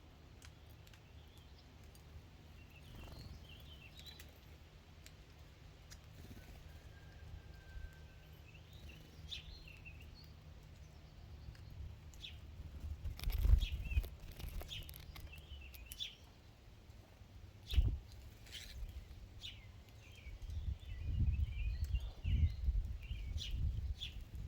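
Small birds chirping and calling in short scattered notes. Several dull low thumps break in, once about halfway, again a few seconds later, and in a cluster near the end; these are the loudest sounds.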